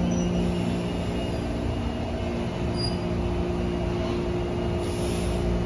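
Taipei Metro 321-type electric train rolling slowly into the platform and braking to a stop, a steady running hum with several held tones under it. A short hiss comes near the end as the train stops.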